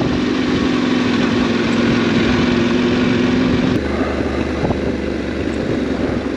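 Yamaha Ténéré 700 World Raid's parallel-twin engine running steadily at low speed over a steady hiss. About halfway through the engine note turns abruptly deeper.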